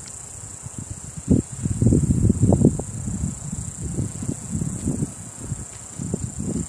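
Insects droning in a steady, high-pitched chorus, with gusts of wind buffeting the microphone. The wind is loudest between about one and three seconds in.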